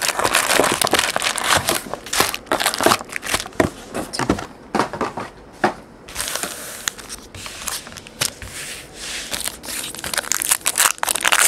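Foil wrapper of a Panini Contenders Patches basketball card pack crinkling and crackling as hands pull the pack from its box and tear it open, a dense run of crackles with a smoother tearing stretch midway.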